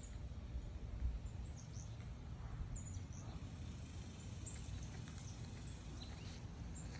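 Outdoor ambience: a steady low rumble of wind on the microphone, with scattered short, high bird chirps.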